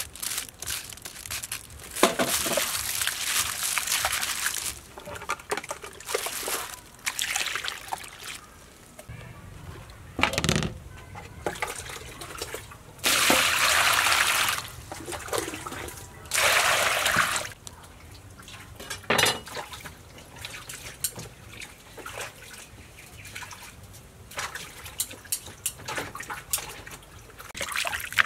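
Water poured from a plastic scoop over a whole raw chicken in a metal basin, in several pours of a second or two each. Between the pours come smaller splashes and sloshing as hands rub the chicken in the water.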